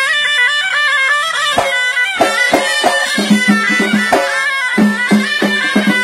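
Traditional folk music: a reedy wind instrument plays a melody, and about a second and a half in a quick, steady drum beat joins it.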